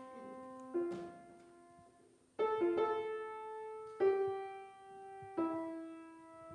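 Piano played haltingly: a handful of slow, separate notes and chords, each left to ring and fade before the next, with long gaps between them. It is a deliberate imitation of an unpracticed student stumbling through a lesson piece.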